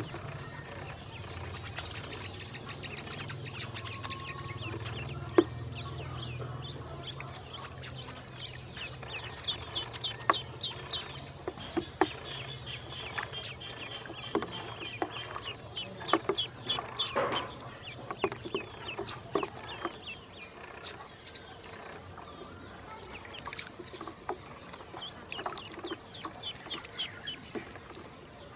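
Ducklings peeping: many short, high peeps, each falling in pitch, coming in quick runs that are densest in the middle. Occasional sharp taps sound among them.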